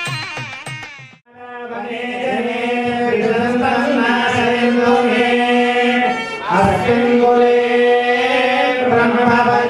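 A group of priests chanting Vedic mantras in unison on a steady held pitch, with a brief pause a little past the middle. A short stretch of music with drums cuts off about a second in, before the chanting starts.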